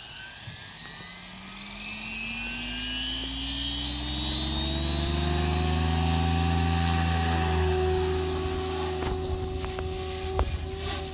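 XL Power Specter 520 radio-controlled helicopter spooling up its rotor: a whine that rises in pitch and grows louder over the first half, then holds steady at flying speed.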